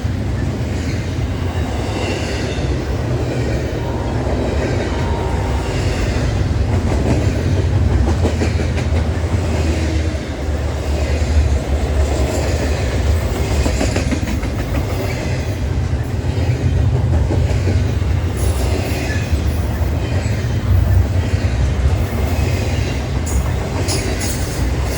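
Norfolk Southern freight train's cars rolling past steadily, with a low rumble of wheels on rail.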